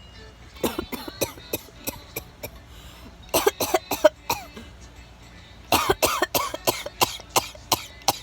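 Fake coughing in three bouts of short, rapid coughs: one starting about a second in, a brief cluster around three and a half seconds in, and a longer run from about six seconds in.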